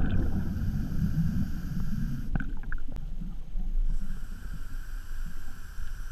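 Scuba diver's breathing through a regulator underwater: a muffled, uneven low rumble of exhaled bubbles through the camera housing, with a few short clicks about two and a half seconds in.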